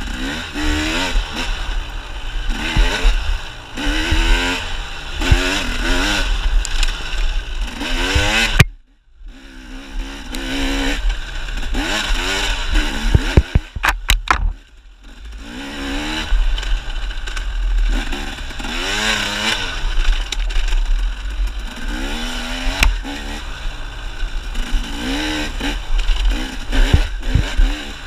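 Dirt bike engine revving up and down again and again as the throttle is opened and closed, the pitch climbing each time. Its sound drops away sharply about nine seconds in, and a quick run of sharp clicks comes about fourteen seconds in.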